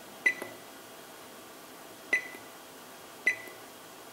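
Three keypresses on the electronic rotary table division controller's keypad, each a click with a short high beep, the first about a quarter second in and the others near two and three seconds. They enter the maximum-speed setting and return the controller to its mode menu.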